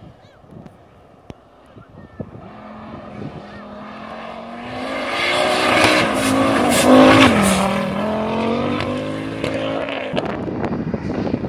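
Rally car on a gravel stage, engine getting louder as it approaches and sliding past at its loudest about six to seven seconds in, with gravel thrown up by the tyres. The engine note drops in pitch as it goes by, then fades.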